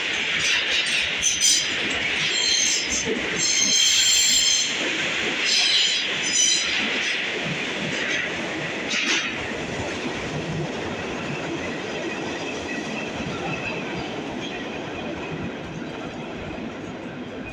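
New York City subway trains running past the platform on the tracks to either side, with a steady rumble and clatter. High wheel squeals come and go over the first several seconds, and the sound then slowly fades as the trains pull away.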